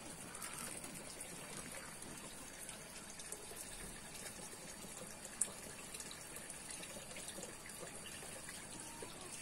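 Water running and trickling steadily through a small channel, with one short sharp click about five seconds in.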